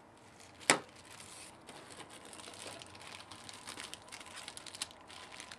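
Packaging crinkling and rustling as camcorder accessories are unpacked, with one sharp click about a second in.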